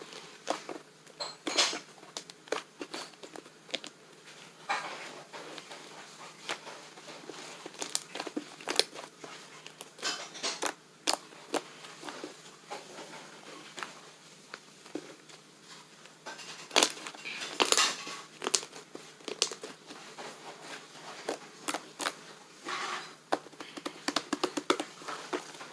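Slime being squeezed, stretched and pressed by hand, giving irregular sticky clicks and small crackling pops, with quick runs of clicks in a few places.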